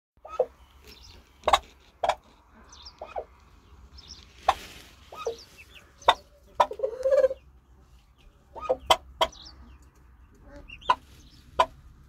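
A brooding hen turkey giving a run of short, sharp clucks at irregular intervals, with one longer wavering call about seven seconds in. Faint high peeps from the chicks under her come in between.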